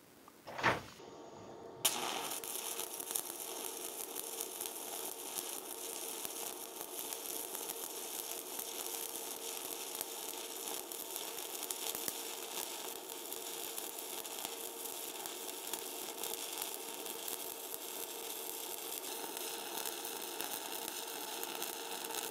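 Stick-welding arc from a RazorWeld 110 inverter running a Lincoln Excalibur E7018 rod at about 100 amps. After a short knock just under a second in, the arc strikes about two seconds in and runs as a steady, even crackling sizzle: running smooth.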